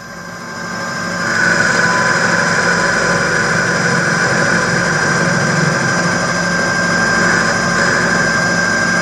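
A small cue lathe running at full speed while a radius cutter is swung back and forth across the spinning cue tip, shaving it to its final rounded shape. The steady whine and scraping grow louder over the first second or so, then hold level.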